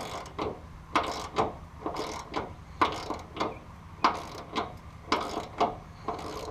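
Hand ratchet cranked in short, even strokes, about two a second, tightening a mounting bolt on a pickup's fuel tank.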